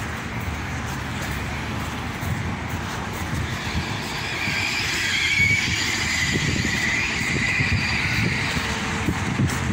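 A car passing, its sound swelling about halfway through and fading near the end, over a steady low rumble of wind on the microphone.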